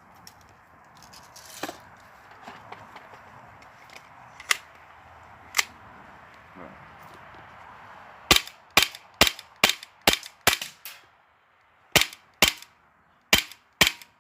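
Krytac SilencerCo Maxim 9 gas blowback airsoft pistol firing on a CO2 magazine: about eleven sharp cracks fired in quick semi-automatic succession, roughly two a second with a brief pause partway through. A few lighter clicks come before the string.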